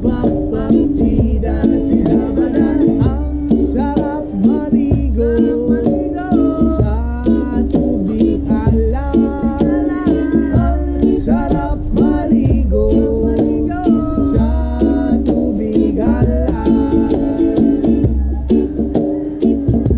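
Acoustic reggae jam: ukulele strumming with djembe, cajon and a shaker keeping a steady beat, and a man singing the melody over it.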